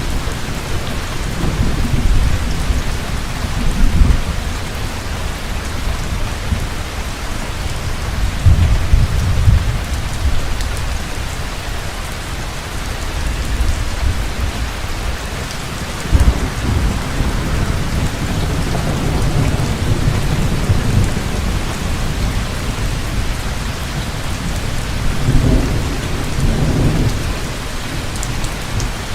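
Heavy, steady rain falling, with rolling thunder rumbling low again and again through it, swelling loudest about 4, 9 and 16 seconds in.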